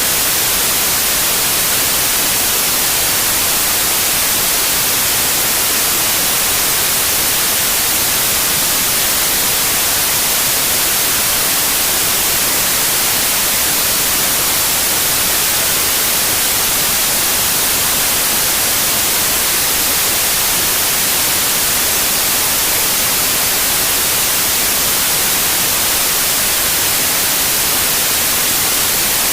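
Steady white noise: an even, unchanging hiss, strongest in the high treble.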